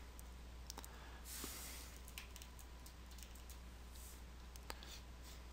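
Faint scattered clicks and taps of computer drawing input: a stylus on a graphics tablet and keyboard shortcut keys. A short scratchy stroke comes about a second and a half in, over a steady hum.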